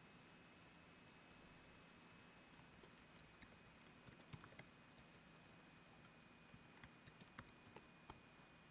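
Faint computer keyboard keystrokes typing a command, in irregular runs of quick clicks that start about a second in.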